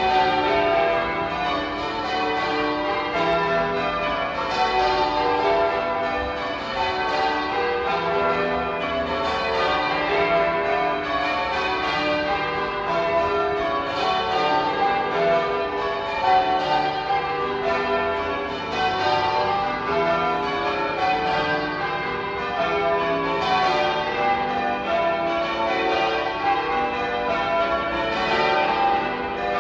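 Manchester Cathedral's church bells change ringing: a steady stream of overlapping bell strokes, one bell after another, with no pause.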